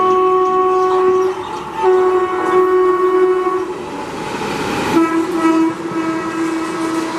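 WAP-4 electric locomotive sounding its air horn in long, steady multi-tone blasts, with a short break about a second in. Near the middle the horn gives way to the rushing rattle of the train passing at speed, then sounds again at a slightly lower pitch.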